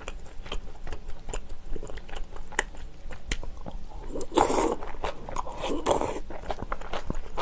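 Close-up eating sounds of crunchy napa cabbage kimchi being bitten and chewed: many short, crisp crunches. Two longer, louder wet slurps come about four and six seconds in.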